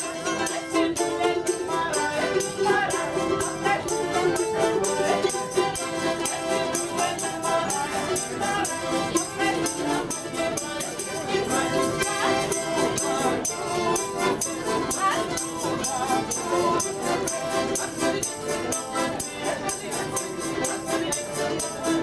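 Live Russian folk music: a balalaika strummed with a tambourine jingling on a fast steady beat.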